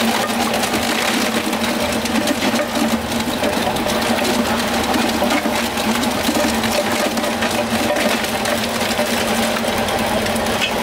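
A small motor running steadily with an even hum, over busy background noise.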